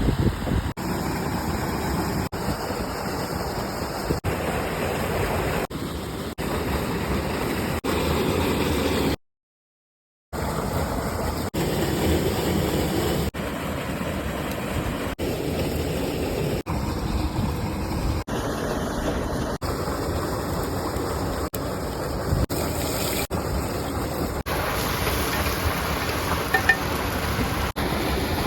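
Rushing water of streams and waterfalls, a steady roar heard in a string of short clips that change abruptly every second or two, with about a second of silence a third of the way through.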